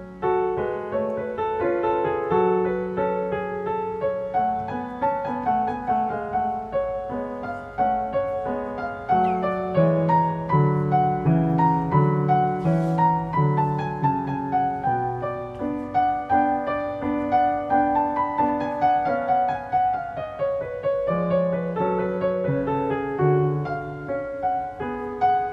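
Background piano music, a gentle run of melody and chords that plays without a break.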